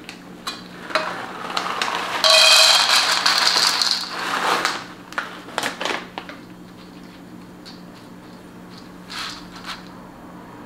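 Dry Cheerios poured from their plastic bag into a glass bowl: bag crinkling, then a loud rattling pour of cereal about two seconds in that lasts nearly two seconds, followed by a few light clicks as the last pieces settle and the bag is set down.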